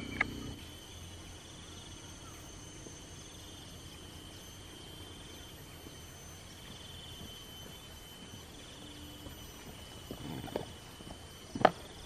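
Steady high-pitched insect drone that swells and fades about every second and a half, with a few soft knocks and a sharp click near the end.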